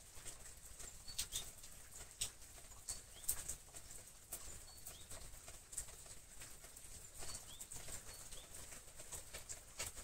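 Leafy greenery stems rustling and crackling as they are handled, cut with pruning shears and pushed into floral foam: irregular sharp snips and clicks over a faint steady hiss.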